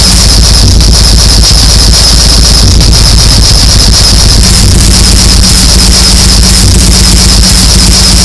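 Harsh, heavily distorted noise music: a loud wall of clipped static with a low bass line stepping between notes underneath.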